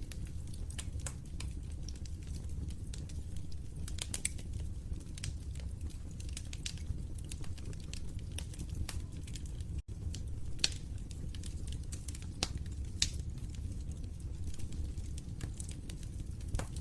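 Wood fire crackling in a fireplace: irregular sharp pops and snaps over a low steady rumble of burning. The sound cuts out for an instant about ten seconds in.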